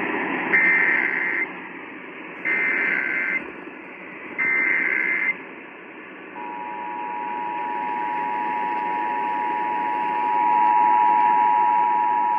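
Emergency Alert System tones received over a radio with a steady static hiss underneath. First come three short bursts of SAME header data tones, each about a second long with a second's gap between them. About a second after the last burst, the steady two-tone EAS attention signal starts and keeps sounding.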